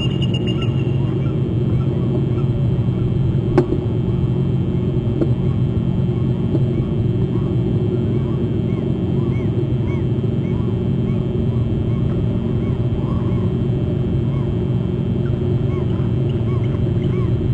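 Speed boat engine running steadily and low-pitched, with small bird chirps repeating faintly over it. A brief high call comes right at the start and a single sharp click about three and a half seconds in.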